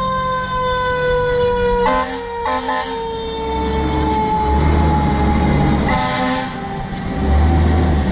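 Fire engine siren wailing and slowly falling in pitch after a quick rise, with two short air-horn blasts about two seconds in and another around six seconds. A diesel engine rumbles underneath.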